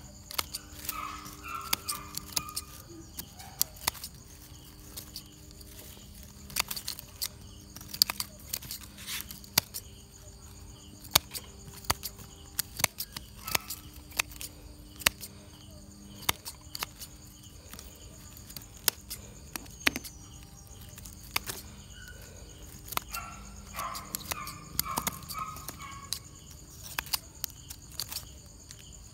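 Hand pruning scissors snipping off the lower leaves and small shoots of a bonsai: sharp metallic clicks at irregular intervals. A short run of chirps sounds twice, about a second in and again near the end.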